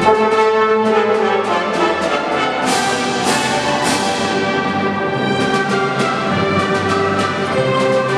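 Symphony orchestra playing a military march live: brass prominent over strings, with regular percussion strokes keeping the beat.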